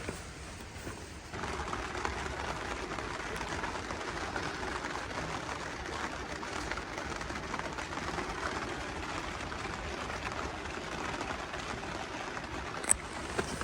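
Steady rain falling, an even hiss of drops that begins abruptly about a second in, with one sharp click near the end.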